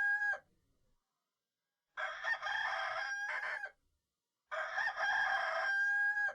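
Rooster crowing: the end of one crow, then two full cock-a-doodle-doos about two and a half seconds apart, each ending on a long held note.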